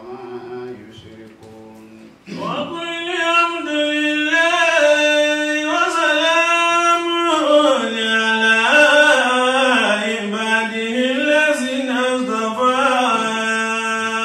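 A man chanting an Arabic praise poem (madih) in long, drawn-out, ornamented notes. It is softer for the first two seconds and then loud.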